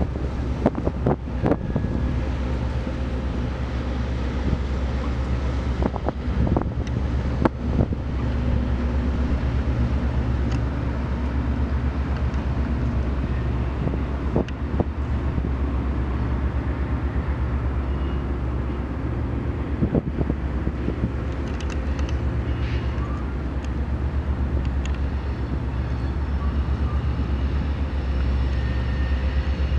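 Steady low engine rumble with a fine regular pulse, mixed with wind on the microphone, and a few sharp knocks, mostly in the first eight seconds.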